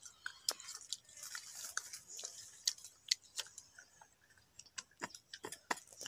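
Children biting into and chewing crisp unripe green mango at close range: an irregular run of sharp crunches and mouth clicks.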